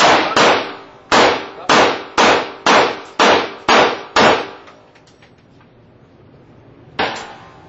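A string of about nine 9mm Glock pistol shots fired at roughly two a second, each bang followed by a short echo off the indoor range walls. After a pause, one fainter bang comes about seven seconds in.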